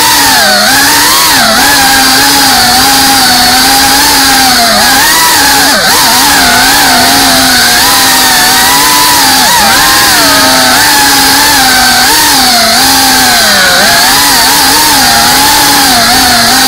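FPV racing quadcopter's brushless motors and propellers whining loudly and without a break. The pitch rises and dips constantly as the throttle changes while it weaves through the trees.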